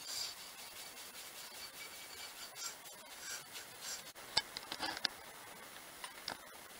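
A cloth rubbing and wiping over a steel brake disc as it is degreased before refitting. The wiping is faint, with a few sharp light clicks a little past the middle.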